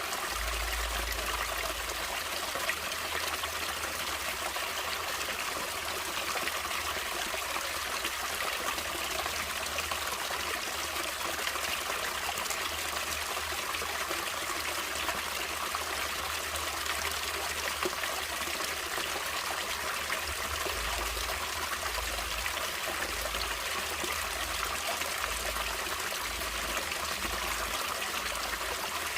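Stream water running and trickling steadily over rocks, a continuous splashing rush.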